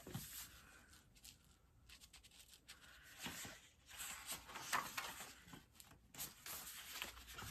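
Faint rustling and light scraping of paper as the pages of a Little Golden Book picture book are handled and turned, with a few small taps.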